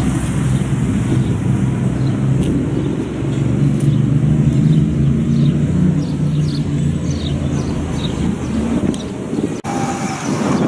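Wind buffeting the camera microphone in gusts, a loud fluctuating rumble, with faint high chirps over it. The rumble breaks off near the end and the sound turns quieter.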